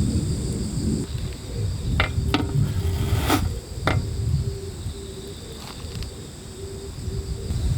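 Gusty wind buffeting the microphone with a steady high insect trilling over it. Near the middle come a few sharp clicks and knocks.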